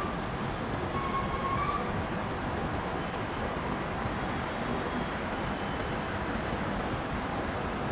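EMD WDP4-class diesel locomotive's 16-cylinder two-stroke engine working under load as the train climbs a gradient: a steady, dense running sound. A short faint high tone sounds about a second in.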